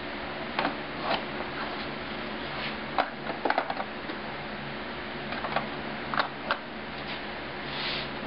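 Light wooden clicks and knocks, several in quick succession about three and a half seconds in, as the hidden-drawer mechanism of an antique portable writing desk is worked, over a steady background hum.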